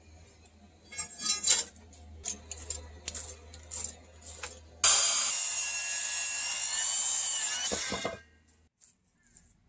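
Handheld circular saw crosscutting a wooden board, running loud and steady for about three seconds and stopping abruptly. Before it starts, a series of light knocks and clicks from handling the board and saw.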